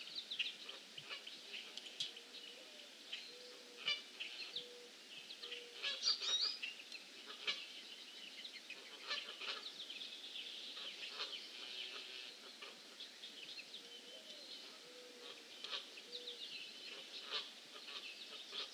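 Birds singing and chirping over one another in many short high calls and trills. Now and then a lower call comes in runs of short repeated notes.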